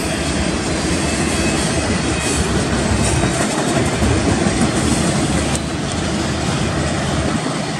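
Double-stack intermodal container well cars of a freight train rolling past at speed: a steady rumble and clatter of steel wheels on the rails.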